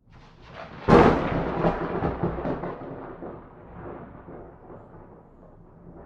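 Thunder: a sharp thunderclap about a second in, then a long rolling rumble that slowly fades away.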